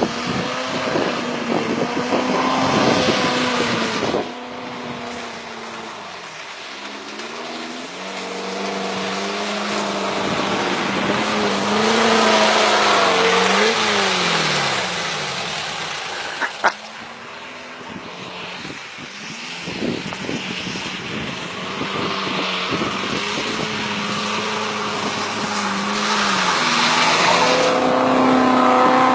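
VW Beetle air-cooled flat-four engines revving while driving through mud, the engine note repeatedly rising and falling in pitch. A single sharp knock sounds about two-thirds of the way in.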